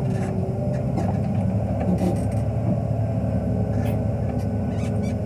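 Wheel loader's diesel engine running steadily, heard from inside the operator's cab.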